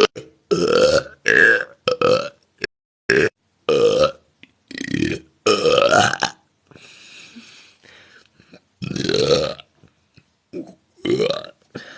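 A woman burping over and over: about ten short belches in quick succession, several rising in pitch, with a quieter breathy stretch near the middle.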